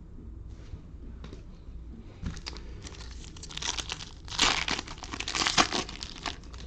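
Foil trading-card pack wrapper being torn open and crinkled, loudest in the second half.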